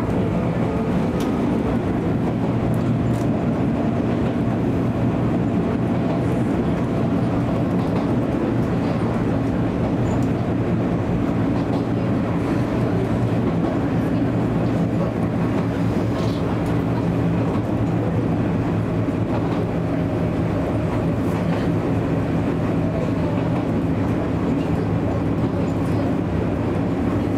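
Izuhakone Railway Sunzu Line electric train running steadily between stations, heard from inside the front car: a steady hum from the drive over the constant rumble of wheels on rails.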